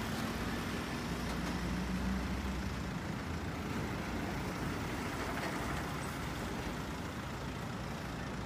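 Engine of a truck-mounted aerial work platform running steadily, a low, even hum with no sudden changes.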